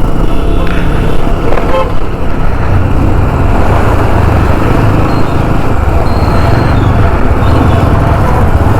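Motorcycle engine running steadily at cruising speed, with the rush of wind and road noise on the rider's camera.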